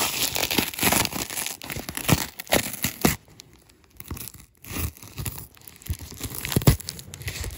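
Packing tape being picked at with fingernails and peeled off a cardboard box, in irregular rasping tears and crackles. There is a quieter pause about halfway through and a sharp click near the end.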